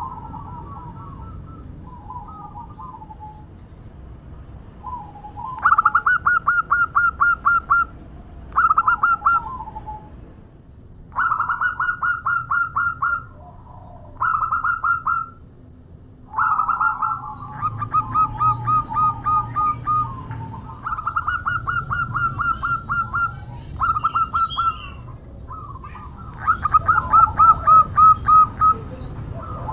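Female zebra dove (perkutut) calling: repeated runs of quick, evenly spaced cooing notes, each run lasting one to two seconds, with short pauses between them.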